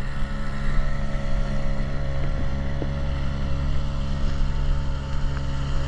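Motorboat engine running at a steady speed, a constant low hum with wind noise on the microphone.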